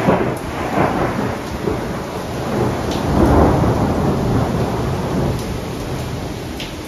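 A thunderclap breaks suddenly at the start and rolls on as a deep rumble that swells again about three seconds in and slowly dies away, over the steady hiss of heavy rain.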